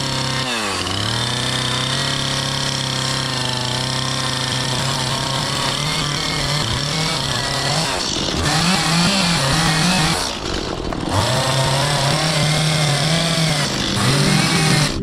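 Chainsaw engine running at high revs, its pitch dropping and recovering about half a second in, then wavering up and down from about four seconds on as it works under load in the wood.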